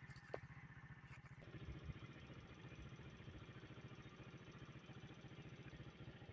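Faint, steady low throb of an engine idling, with one light click about a third of a second in.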